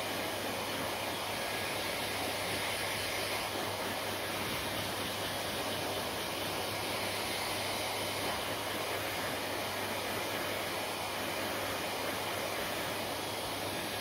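Hair dryer running steadily, blowing air in an even hiss with a low hum under it.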